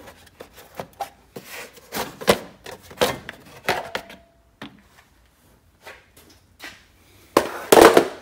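Cover over the flywheel fan of a Briggs & Stratton V-twin lawn-tractor engine being lifted off and handled: a run of knocks and rubbing, then a quieter spell and a louder clatter near the end.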